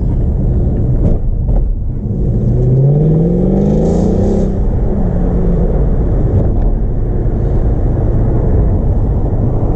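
Mercedes-AMG C63's V8 engine and exhaust, with secondary cats and resonators deleted, running while driving; about three seconds in it accelerates, the pitch rising for about a second before levelling off.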